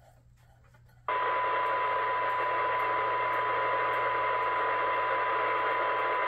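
Two-metre FM receiver's speaker reproducing a weak test signal sent through a duplexer cavity: a steady test tone buried in loud hiss. It comes on suddenly about a second in. The noise is the sign of a signal turned down near the receiver's threshold.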